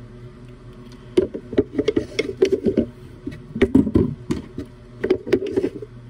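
Irregular knocks, taps and rattles of a small cologne bottle and its box being handled and set down close to the microphone, starting about a second in, over a steady low hum.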